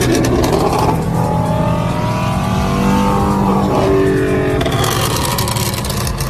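Ford Mustang engine running hard at high revs, with its pitch wavering and stepping up partway through.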